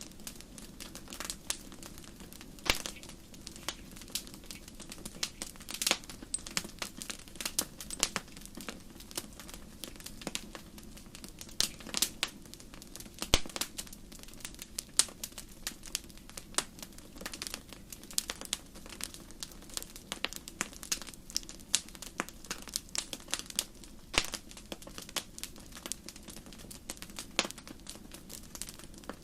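Wood campfire burning with a steady low hiss and irregular sharp crackles and pops, several of them louder snaps.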